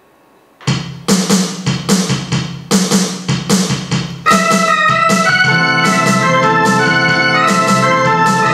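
Home electronic keyboard playing a forró song. Its drum rhythm starts alone under a second in, and about four seconds in an organ-voiced melody with chords comes in over the beat.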